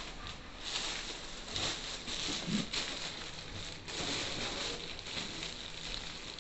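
Paper sheets and plastic packaging rustling and crinkling as they are handled over a cardboard box, in uneven crackly bursts.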